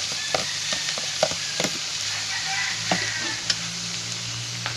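Kuhol (freshwater snails) in their shells sizzling as they are tipped into a hot wok, with a steady hiss and about eight sharp clicks as the shells hit the metal pan.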